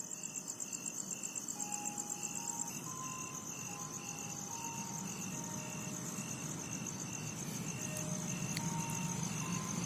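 Crickets chirping steadily in the night, with a repeating high beep about two to three times a second and scattered short chime-like notes. A low rumble builds through the second half as an approaching train nears the station.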